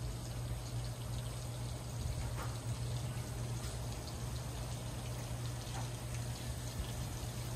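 Steady outdoor ambience: an even hiss over a constant low hum, with a couple of faint short chirps about two and a half and six seconds in.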